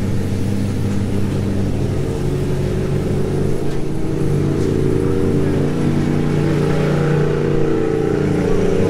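Off-road UTV race car engine running hard on the track, a steady engine sound that swells a little about halfway through.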